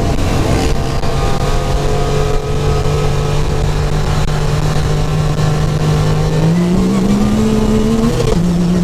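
Supercharged Yamaha YXZ1000R's three-cylinder engine pulling under load, heard from the cockpit over a steady rush of noise. It holds a steady pitch, climbs about six and a half seconds in, then drops sharply near the end as the gearbox shifts up.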